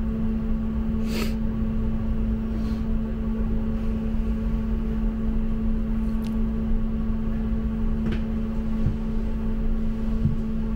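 Steady electrical hum and low rumble inside a Bombardier M5000 tram standing at a stop, with a few faint clicks.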